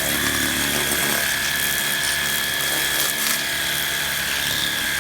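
Battery-operated pressure washer running and spraying on its 0-degree jet setting: a steady motor whine over a loud, even hiss of water spray.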